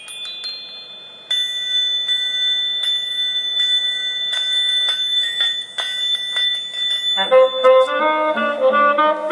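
Watsons Bluetooth speaker playing a tone-test track: several steady high test tones held together for a few seconds. About seven seconds in, they give way to a quick run of changing lower tones, like a melody. There is no bass.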